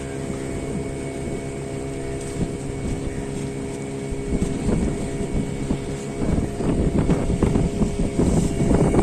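Small motorboat's engine running steadily underway, with choppy water splashing and slapping against the hull that grows louder about halfway through.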